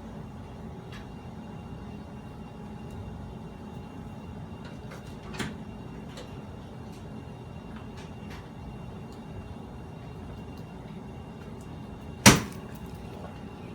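A single loud, sharp knock about twelve seconds in, over a steady room hum with a few faint ticks and a smaller knock about five seconds in.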